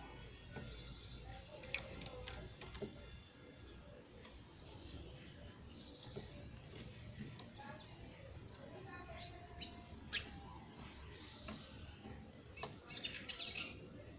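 Small birds chirping: short, high, squeaky chirps and calls scattered throughout, with a louder cluster of chirps near the end.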